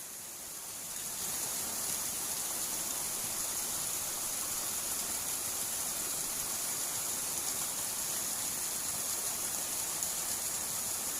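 Steady rush of water flowing in a small ditch, swelling a little about a second in and then holding even.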